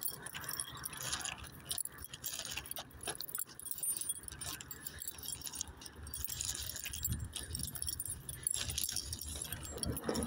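Footsteps of a person walking on paving, with a light metallic jingling and many small clicks and rustles throughout.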